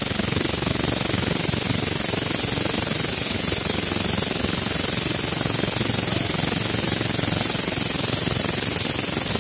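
Katydid (belalang kecek) stridulating: a loud, unbroken rapid-pulsed buzz with a steady high tone above it.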